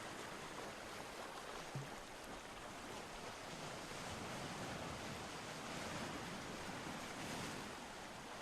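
Ocean surf: a steady rushing wash of waves that swells a little and eases again.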